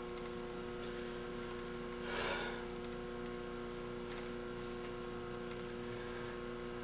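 Steady electrical mains hum with several steady overtones running underneath. About two seconds in, a brief soft rush of noise rises over it and fades within half a second.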